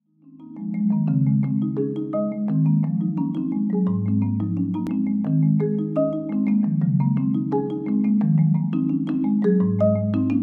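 Two marimbas playing a fast, repeating minimalist pattern of struck notes, fading in at the start, with a deep low note entering about four seconds in and again near the end.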